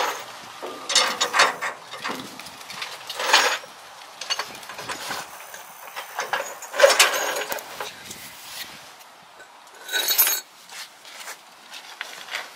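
Hand ratchet clicking in short bursts, four or five times, as it works the U-bolt nuts clamping a pickup's rear leaf spring to the axle.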